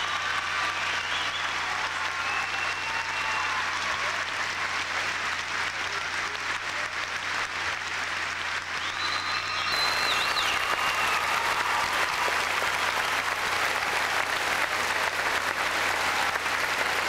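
Large arena audience applauding steadily, a dense wash of clapping that grows louder and brighter about ten seconds in.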